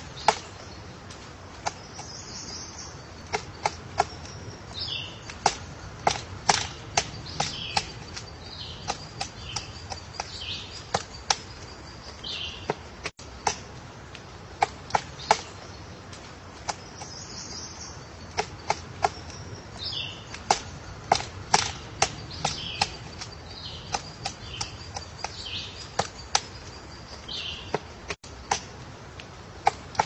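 A woodpecker chiselling into a tree trunk with its bill: sharp single wooden knocks at an uneven pace, one or two a second, rather than a fast drum roll. Faint high songbird calls sound in the background.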